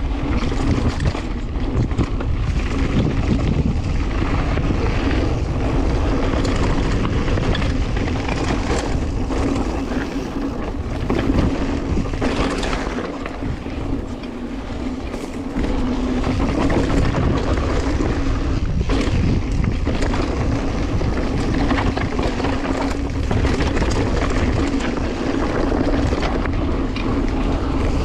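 Wind rushing over a GoPro's built-in microphone as a mountain bike rides a rocky trail, with tyre rumble and a few short knocks and rattles from the bike. The noise eases briefly about halfway through.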